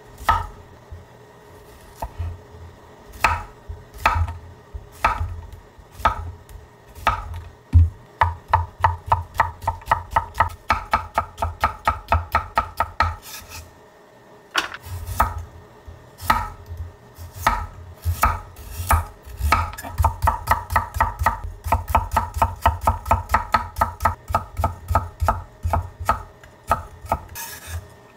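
Chef's knife chopping zucchini and carrot on a thick end-grain wooden board. A few separate knocks come first, then fast runs of about four to five strokes a second, with a short pause about halfway through.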